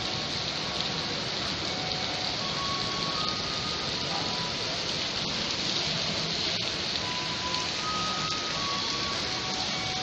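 Steady rain falling, an even hiss throughout, with short faint tones now and then.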